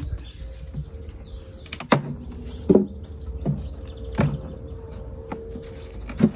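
Wooden hive frames and a metal hive tool knocking and clicking against the frame tops and hive box as frames are levered and lifted out, several sharp knocks about a second apart. Birds chirp faintly in the background.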